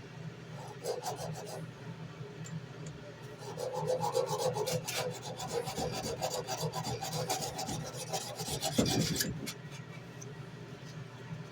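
Sandpaper on a hard backer rubbed back and forth by hand over the steel of a tanto knife blade, a quick run of rasping strokes. The strokes are heaviest from about three and a half seconds in to about nine seconds.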